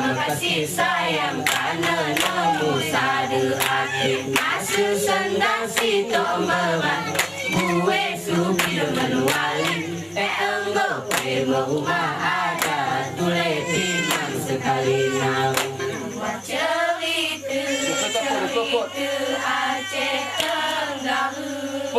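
A group of young women singing together in unison, chanting the verses of an Alas mesekat seated dance, with sharp hand claps and slaps in time with the song.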